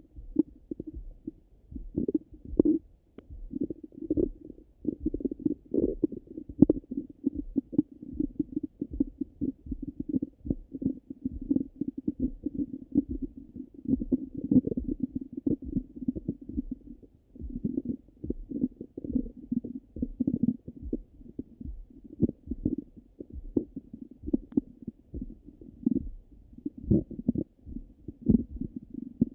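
Stomach gurgling and rumbling after a meal, heard through a stethoscope: irregular, muffled bowel sounds of active digestion, with many short gurgles running into one another.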